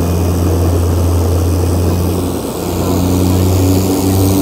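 Propeller airplane's engine and propeller droning steadily, heard from inside the cabin, with a deep hum. The level dips briefly about two and a half seconds in, and the engine note shifts slightly after it.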